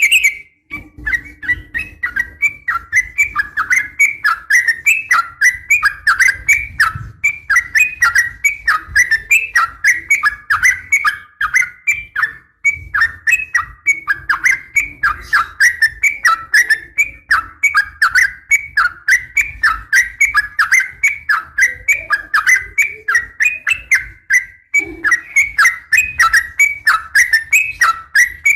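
Yellow-vented bulbul (trucukan) calling in a long, unbroken run of short chirping notes, repeated several times a second at an even pace. This is the rapid 'ropel' call used as a lure recording, offered as a female calling a male.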